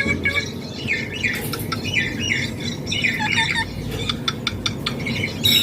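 Green ringneck (rose-ringed) parakeet chattering in a string of short squawky calls, with a quick run of sharp clicks around the middle, over a steady low background noise.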